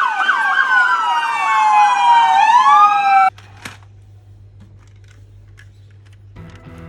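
Two toy emergency-vehicle sirens sounding together: a fast yelp sweeping down about three times a second over a slower wail that drops gradually and then rises sharply. Both cut off suddenly about three seconds in, leaving a faint low hum.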